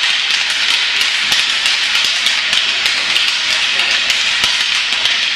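Fighting sticks clacking together in rapid, irregular strikes from several pairs at once, over a steady wash of noise.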